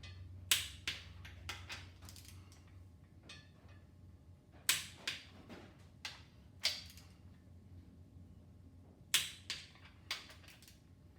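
Torque wrench tightening the crankshaft main bearing cap bolts to 65 ft-lb, giving sharp clicks in clusters of two to four, a few seconds apart.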